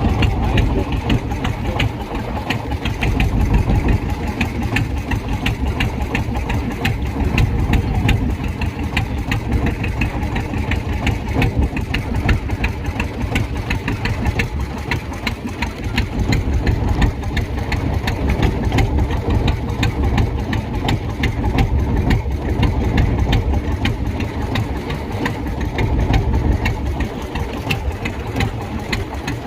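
A fishing boat's engine running steadily with a fast, even knock.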